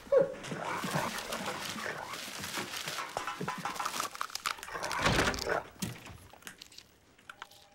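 A man rooting face-first through a wastebasket like a dog, with dog-like snuffling noises and paper and a plastic bin liner rustling and crackling. There is a louder noise about five seconds in, then the rustling tails off near the end.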